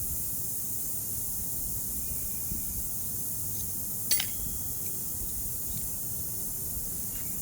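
Air hissing steadily out of a car tyre through the hole left by a pulled screw. A single sharp click comes about four seconds in.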